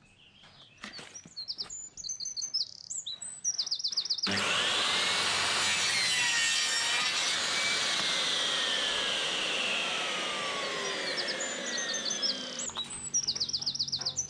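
Electric mitre saw starting about four seconds in and cutting through a pine board for several seconds, then winding down. Birds chirp before and after the cut, and there are a few light knocks of the wood being handled.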